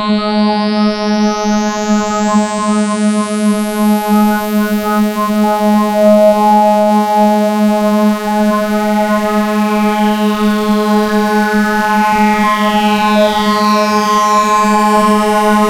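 Modular synthesizer drone (Verbos modules): a steady low tone near 210 Hz with a stack of overtones, slightly wobbly because one oscillator drifts off its tuning. A high sweep rises over the first few seconds, and from about ten seconds in the upper overtones shift and cross in a phasing pattern.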